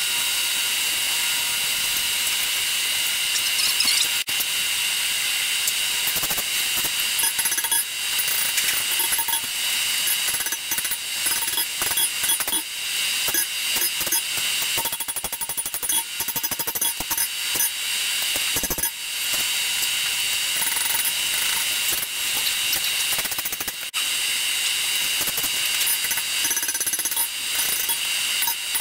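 Hand hammer striking a hot 5160 steel bowie knife blade on an anvil: a run of rapid metal-on-metal blows that begins several seconds in and goes on with short pauses, over a steady mechanical whir.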